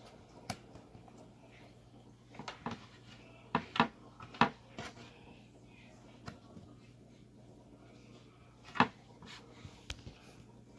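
Jigsaw puzzle pieces being handled and pressed into place on a puzzle board: scattered sharp taps and clicks, a cluster a few seconds in and another loud tap near the end.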